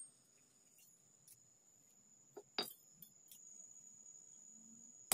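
A few sharp metallic strikes of a hammer on steel, one about two and a half seconds in and two close together near the end, each ringing high, over a faint steady high-pitched ring.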